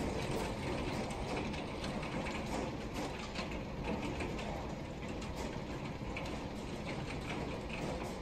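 Hailstones pelting down in a heavy hailstorm: a dense, steady clatter of countless small impacts, with sharper clicks standing out now and then.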